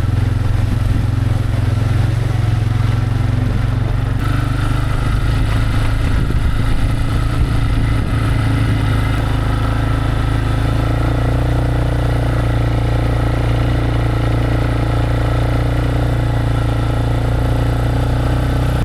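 Vehicle engine running steadily while driving, its note shifting slightly about four seconds in and again around ten seconds in.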